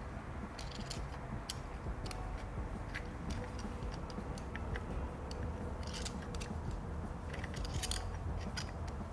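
Screwdriver driving a screw into the front wheel hub: small irregular metallic clicks and scrapes, coming thicker in the second half, over a steady low rumble.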